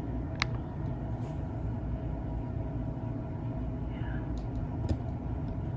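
Steady low background rumble, with a few soft clicks from a paper towel and plastic cup being handled, one about half a second in and a few more near the end.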